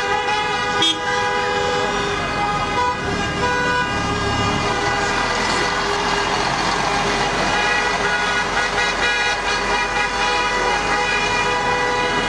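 Horns blaring without a break, several steady tones sounding together over street noise.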